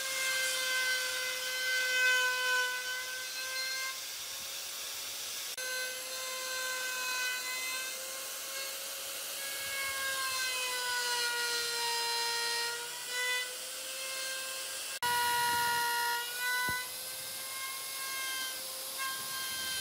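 Electric power tool's motor running on wood, a steady whine that sags slightly in pitch at times as it takes load, with two abrupt breaks.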